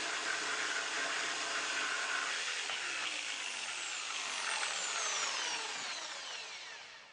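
Bosch GST Professional jigsaw with an extra clean wood blade cutting through 75mm softwood at full pendulum action, a steady rasping saw noise. In the second half the motor is switched off and its whine falls in pitch as it runs down and fades.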